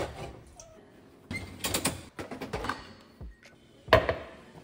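Objects being handled: a run of clicks and clatters, then a sharp knock about four seconds in.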